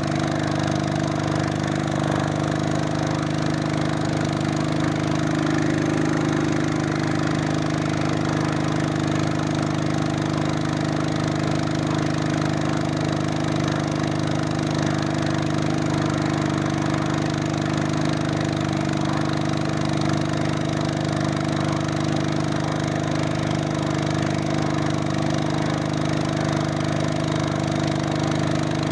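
Honda GX200 single-cylinder four-stroke engine running steadily at a constant speed, driving a small boat's propeller through a belt.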